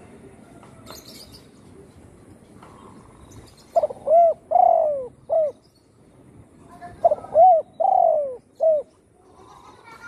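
Spotted dove cooing: two phrases about three seconds apart, each of three notes with the middle one longer and falling in pitch.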